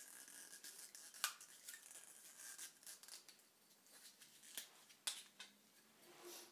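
Faint handling sounds of PTFE (Teflon) thread tape being wound by hand around a fitting's threads, with a few light ticks and crinkles; the sharpest tick comes about a second in.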